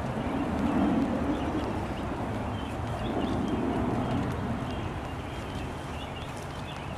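Outdoor ambience of steady light rain, an even hiss, with a bird chirping faintly several times in the second half.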